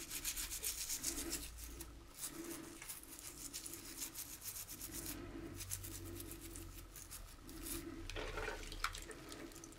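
A toothbrush scrubbing a small wet model car part, with quick back-and-forth bristle strokes in runs and a short pause about five seconds in.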